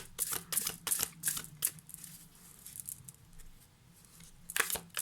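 A tarot deck being handled and shuffled: quick papery card flicks and riffles that die down in the middle and pick up again, louder, near the end.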